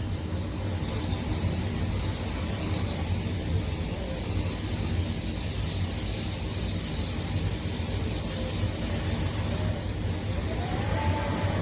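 Strong wind blowing steadily, a deep rumble under a high hiss. Near the end a faint whistle rises and falls.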